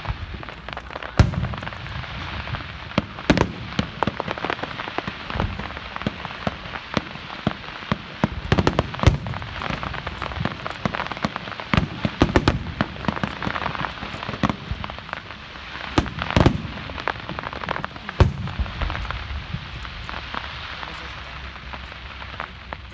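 Fireworks going off: a continuous dense crackling, broken by many sharp bangs and, every few seconds, a louder deep boom.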